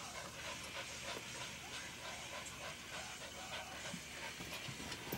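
Small fluffy white dogs panting and scuffling close by as they play, with many short, soft irregular rustles.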